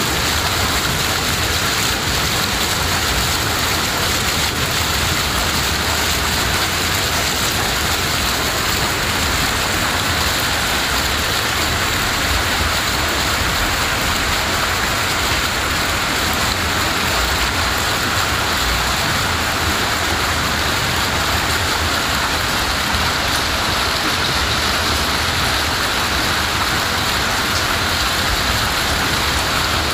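Heavy rain pouring onto floodwater, a steady dense hiss of splashing with no let-up.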